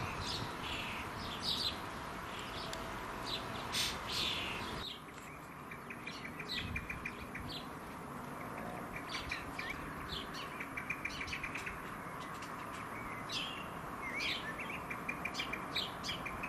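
Garden birds chirping: many short, high calls, with several quick rattling runs of calls. The background noise drops abruptly about five seconds in.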